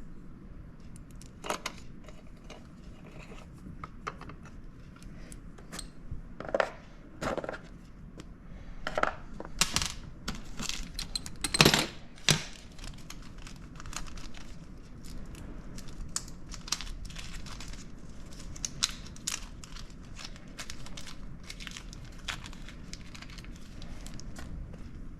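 Irregular clicks, taps and rustling from hand work on a chainsaw as parts and tools are handled, with the loudest clatter about twelve seconds in.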